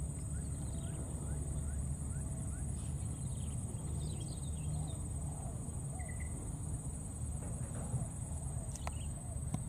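Steady high-pitched drone of insects, with faint short chirps scattered through and a low rumble underneath. Two sharp clicks come near the end.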